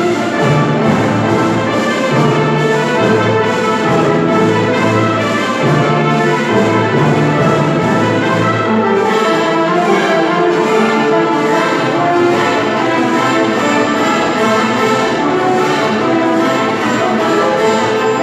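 An orchestra playing a lively dance at full volume, with the brass prominent over a steady, driving beat.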